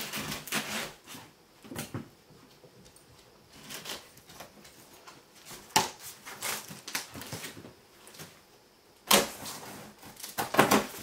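Tape and cardboard on the top of a large shipping box being worked open by hand: irregular scratchy scraping and rustling strokes, with a louder scrape about nine seconds in.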